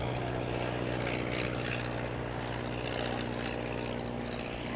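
Avro 504K biplane's piston engine and propeller droning steadily in flight.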